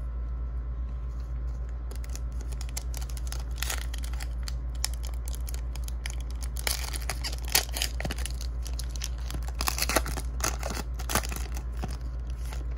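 A foil Donruss Optic trading-card pack being torn open and its wrapper crinkled, a run of sharp crackles starting about two seconds in. A steady low hum runs underneath.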